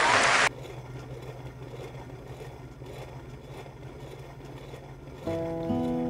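Audience applause that cuts off abruptly half a second in, leaving a faint steady low hum; near the end an acoustic guitar starts strumming.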